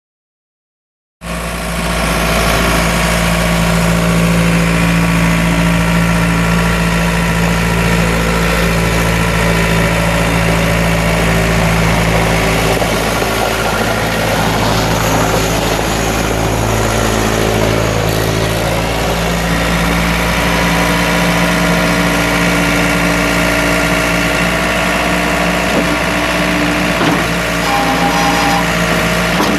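Case 4-390 3.92 L four-cylinder diesel engine of a skid steer running steadily at idle, cutting in suddenly about a second in, with a noisier stretch midway.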